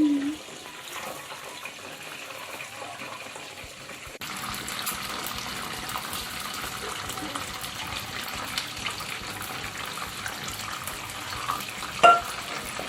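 Breaded chicken wings deep-frying in hot oil: a steady sizzle with fine crackling, which gets louder about four seconds in. A short sharp sound comes near the end.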